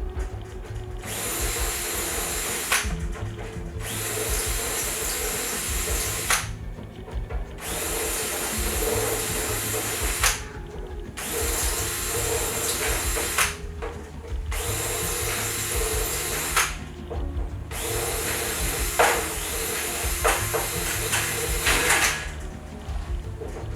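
Power drill running in repeated spurts of a few seconds with short pauses between, typical of deburring holes in aluminium wing parts one after another.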